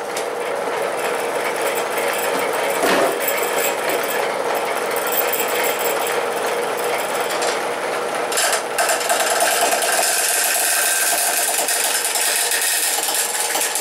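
Wood lathe running with a square ash blank spinning. About two-thirds of the way in, a turning chisel starts cutting the hard corners off the blank.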